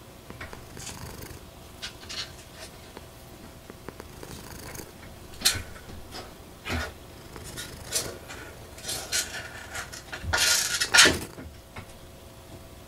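American Shorthair cat purring steadily, with a series of short rustles and knocks over it; the loudest cluster comes about ten to eleven seconds in.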